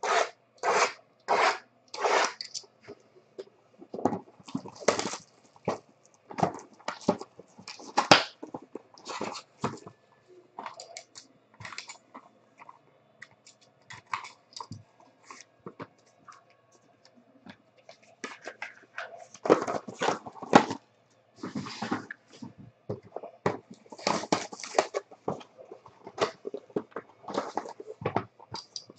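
Cardboard trading-card boxes being handled and opened by hand: quick scrapes and rustles as boxes slide and are set down, and a box being slit open with a cutter. There is a sparser spell in the middle.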